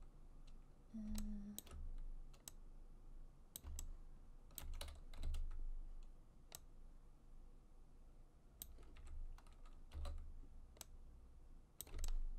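Computer keyboard keys and mouse buttons clicking irregularly, with soft low thuds between the clicks.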